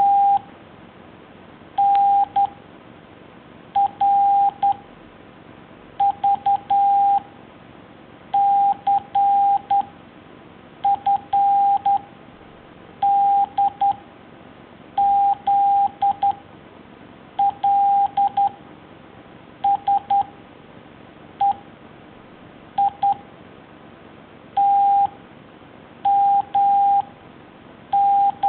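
Morse code: a single steady beep tone keyed into short dots and long dashes, sent as one character at a time with about two seconds between characters, as in a drill on the letters of the alphabet.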